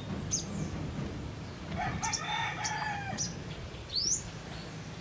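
A rooster crowing once, a call of about a second starting near two seconds in, with short rising high-pitched bird chirps around it.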